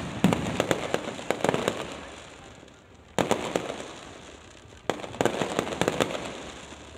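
Fireworks going off in three separate volleys, just after the start, about three seconds in and near five seconds in. Each volley is a sharp onset followed by a cluster of crackling pops that fades over a second or two.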